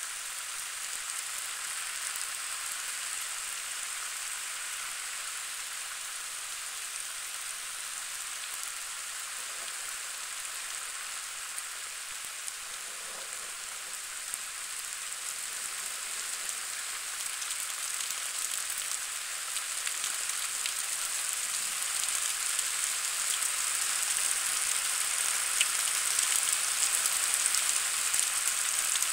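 Steady rain falling, a dense patter of drops that grows heavier over the second half.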